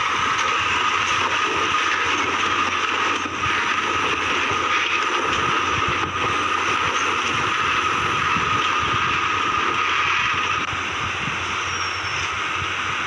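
Heavy Tata 14-wheeler tipper truck's diesel engine running as the laden truck crawls over a rutted mud road, with a steady high-pitched tone over it. The sound drops a little and changes about three-quarters of the way through.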